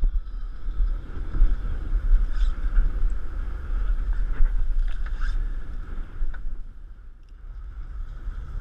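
Wind buffeting the microphone in gusts over choppy water slapping a drifting boat's hull, with a few light clicks.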